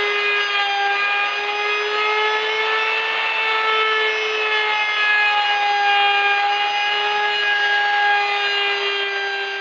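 Electric power tool motor running at a steady high-pitched whine, with a hiss of wood being worked under it.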